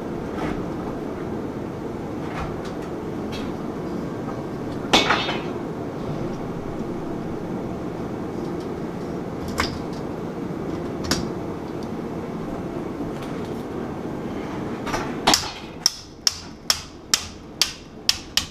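A steady low hum with a few scattered metal clicks. Near the end, a quick run of hammer blows, about three a second, on sheet-metal ductwork as a drive cleat is tapped on.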